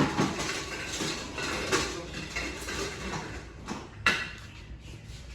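Small metal hooks and fittings clinking and knocking in a series of short, uneven clicks, with three sharper knocks: one at the start, one under two seconds in and one about four seconds in.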